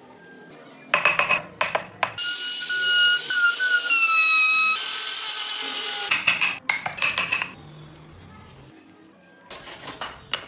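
A small high-speed power tool whines for a few seconds, its pitch sagging slightly, then gives a harsh hiss for about a second, as if cutting into the wood. Short bursts of scraping on wood come about a second in and again near the end.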